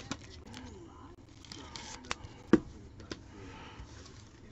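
Trading cards and their packaging being handled on a table: light clicks, rustling and scraping, with one sharper knock about two and a half seconds in.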